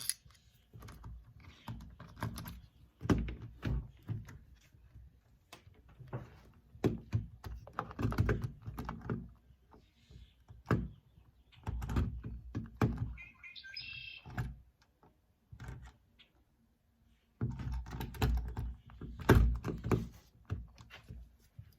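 Metal parts of a door lockset knocking and clicking as they are pushed into the door and worked into line by hand, with irregular thunks and rattles.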